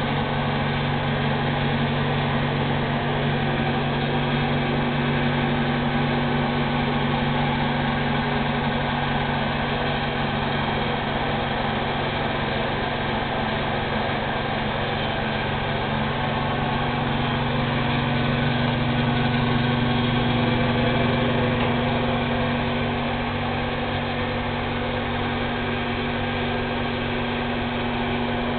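Steady mechanical hum with a constant low drone, swelling slightly about two-thirds of the way through.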